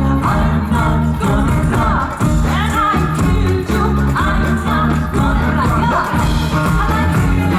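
Live band playing amplified music with a singing voice over a bass line that steps from note to note.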